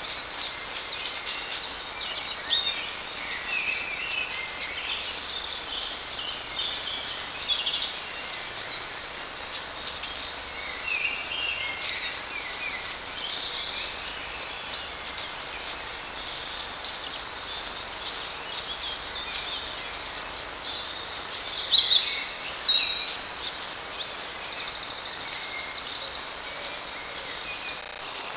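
Birds singing and calling in woodland, heard through a trail camera's microphone over a steady hiss, with many short chirps and trills and a few louder calls late on.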